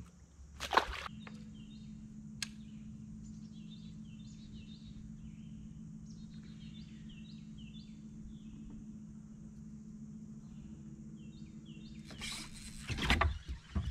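Bow-mounted electric trolling motor humming steadily, starting about a second in, with birds chirping in short repeated notes over it. A sharp splash near the start, as the released bass drops into the water, and louder noisy bursts near the end.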